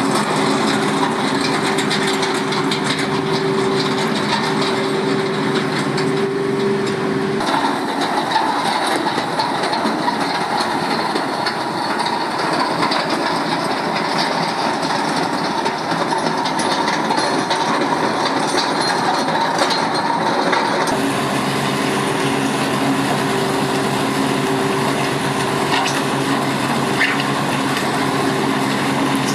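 Engine of driveway-grading machinery running steadily, with a constant rattling and crunching over it. The sound changes abruptly twice, as different shots of the machine working are cut together.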